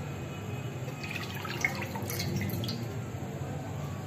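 Cooking oil being poured into an empty non-stick karahi: a liquid trickle and splash, busiest in the middle, with a small click about one and a half seconds in.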